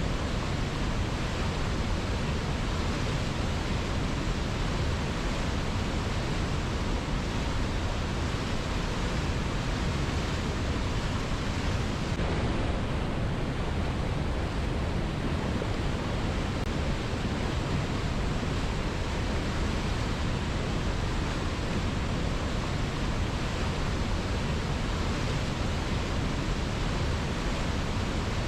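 Strong river water rushing steadily: a dense, even noise with no breaks or changes.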